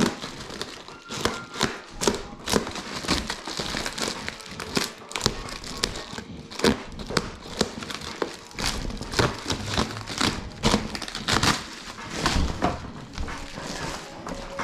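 Packing material being pulled and worked loose from a boxed electric scooter: irregular crinkling and crackling, with many short sharp rustles and a few knocks.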